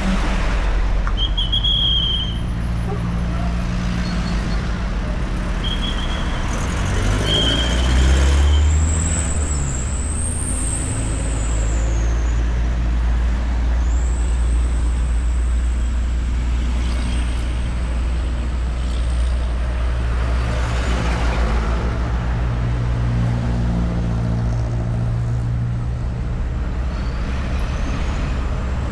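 Steady road traffic of cars and motorbikes passing, with a continuous low rumble of engines and tyres. A heavier vehicle swells loudest about eight seconds in. A few short high chirps and a long thin high whine sit over the rumble in the first twenty seconds.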